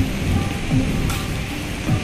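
Steady hiss of heavy rain, mixed with background music: a beat of deep drum notes that fall in pitch, with a few held tones above.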